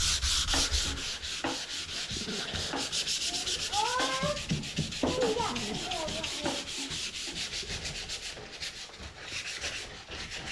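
Sandpaper rubbed by hand back and forth over a painted wooden drawer in quick, even strokes, taking off old white paint.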